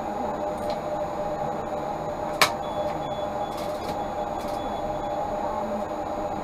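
Tatra T3 tram running, heard from inside the car: a steady rumble with a steady two-note hum, and a single sharp click about two and a half seconds in.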